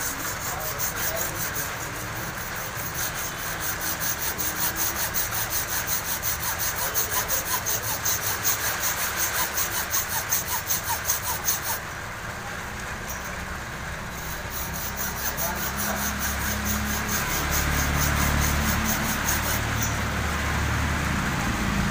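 Hacksaw cutting through a 12 V LED light's circuit board in quick, even back-and-forth strokes. The strokes pause briefly about halfway through, then carry on. A low rumble builds up in the second half.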